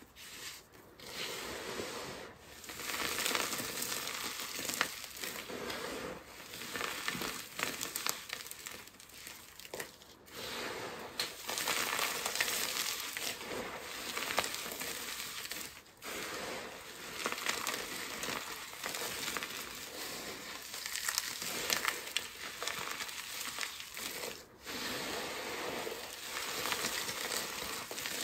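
Hands squeezing and stirring a heap of crushed soap shards mixed with powder and glitter: a continuous crunching and crackling of crumbs, with a few brief pauses between handfuls.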